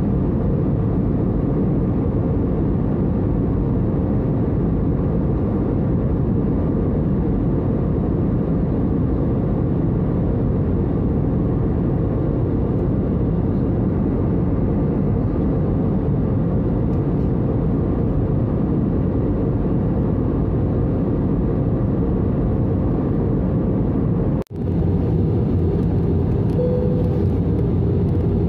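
Steady cabin noise of a jet airliner in cruise, heard from a window seat over the wing: turbofan engine and airflow rumble with a faint steady hum. The sound cuts out for an instant about 24 seconds in, then resumes unchanged.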